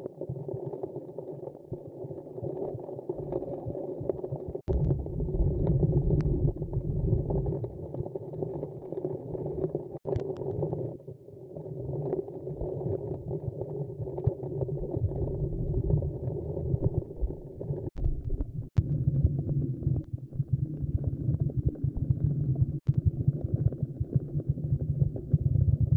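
Muffled underwater rumble of moving water, heard through a camera's waterproof housing, with a few short breaks and clicks where the footage is cut.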